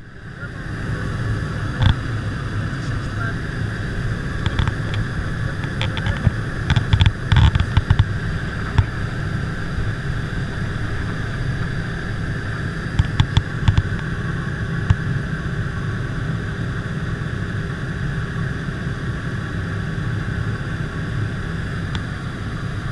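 Steady drone of a skydiving jump plane's engine in flight, heard inside the crowded cabin. A few short sharp knocks and clicks cut in over it, bunched in the first third and again about halfway.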